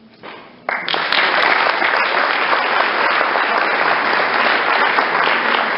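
A roomful of people clapping, starting suddenly under a second in and continuing steadily.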